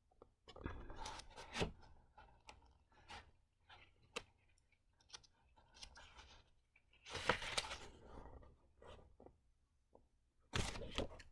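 Paper rustling as a paperback manga volume is handled and its pages are opened, in several short bursts, the loudest about seven seconds in.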